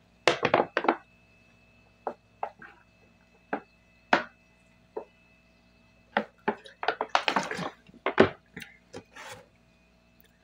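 A person eating and drinking at close range: short, scattered mouth clicks of chewing, then a close run of swallows and gulps from a plastic bottle from about six to nine seconds in.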